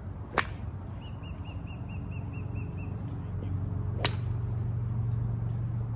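Two sharp golf club strikes on the ball about three and a half seconds apart, the second louder, over a steady low hum. Between them a bird gives a quick run of about nine high chirps.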